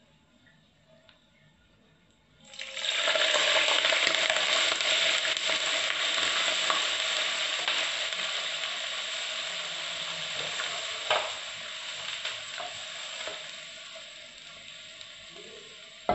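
Hot liquid with cardamom pods poured onto browned vermicelli in a metal pot, sizzling and hissing: it starts suddenly about two and a half seconds in and slowly dies down, with a few light knocks of the pans in the second half.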